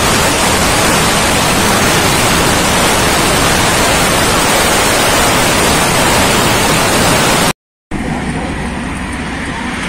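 Wind rushing over the microphone of a camera on a motorcycle moving at highway speed: a loud, steady, even roar. It breaks off suddenly about seven and a half seconds in and gives way to quieter outdoor noise with a low hum.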